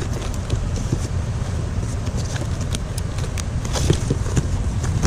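Cardboard boxes and junk being handled in a trash pile: scattered rustles, scrapes and light knocks over a steady low rumble.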